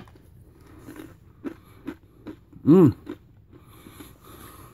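A person chewing a mouthful of dry-roasted nuts, raisins and candy-coated chocolate discs, with a few short sharp cracks as the nuts are bitten. Near the middle comes a short hummed "mmm" that rises and falls, the loudest sound here.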